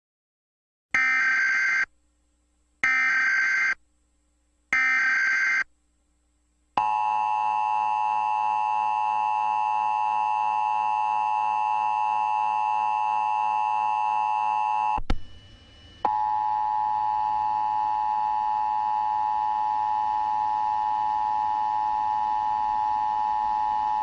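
Emergency Alert System test tones: three short bursts of raspy digital header data, about a second apart, then the long, steady two-tone attention signal. The attention signal drops out briefly with a click about two-thirds of the way through, then resumes.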